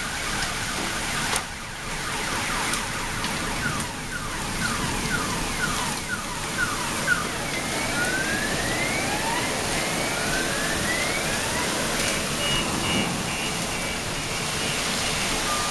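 Heavy rain and hail falling steadily, with occasional sharp knocks of hailstones, while a car alarm cycles through its tones: quick repeated rising chirps, then slower rising wails, then rapid high beeping near the end.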